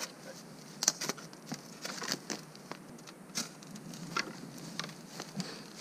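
A steel shovel digging into soil and dry bamboo leaf litter to dig out a bamboo shoot. It makes irregular sharp scrapes and crunches, with rustling crackles in between.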